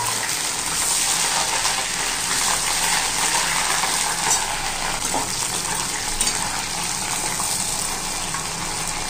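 Sliced onions sizzling steadily as they fry in hot mustard oil in a kadai, with a steel spatula stirring and now and then clicking against the pan.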